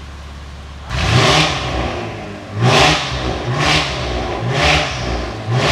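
Porsche Panamera's engine breathing through a newly fitted Fi Exhaust full-system exhaust, idling and then revved about five times from about a second in. Each rev rises and falls quickly, and the first is the longest.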